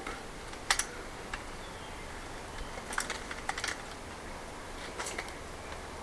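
A few light, scattered clicks and taps from hands working the folding e-bike's saddle and seat post, with a short cluster of clicks about three seconds in.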